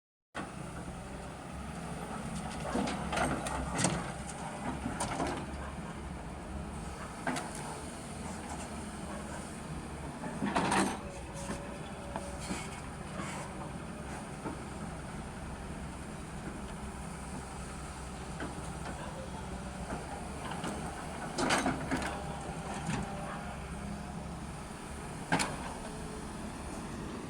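Excavator's diesel engine running steadily, with scattered clunks and rattles as soil is loaded into a dumper truck.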